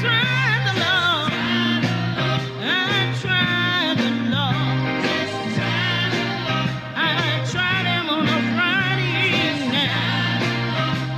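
Gospel song playing on a band, with a wavering lead melody over a steady bass line.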